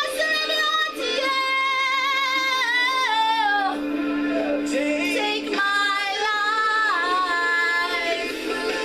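A woman singing a slow worship song, holding long notes and sliding between pitches.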